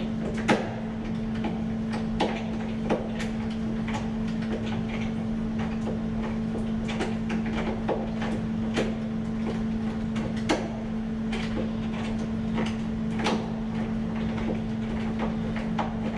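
Scattered metallic clicks and knocks from a brass doorknob lockset being worked on by hand to free a jammed latch that won't let the door open, over a steady low hum.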